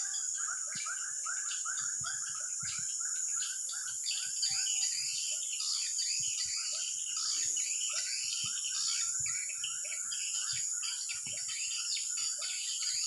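Birds chirping and calling over and over against a steady, high-pitched drone of insects.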